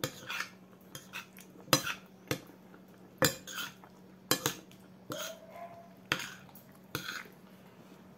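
Metal spoon clinking and scraping against a plate while eating: about a dozen sharp, irregular clinks.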